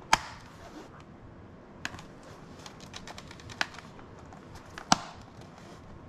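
Plastic bottom cover of an HP laptop snapping onto the chassis as it is pressed down around the edges: a handful of sharp, separate clicks as the retaining clips engage, the loudest just after the start and about five seconds in, with fainter ticks between.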